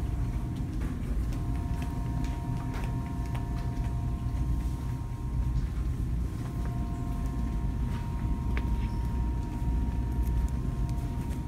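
Room tone of a large shop: a steady low rumble with a faint steady hum, and a few light clicks scattered through it.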